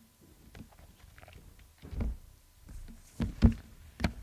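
A few soft, separate knocks and thumps in a quiet room, the loudest about three and a half seconds in.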